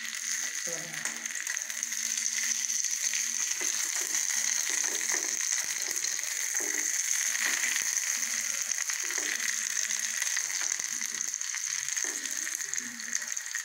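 Whole marinated chicken frying in shallow oil in a nonstick pan: the oil sizzles steadily with fine crackles as the last of the moisture cooks off.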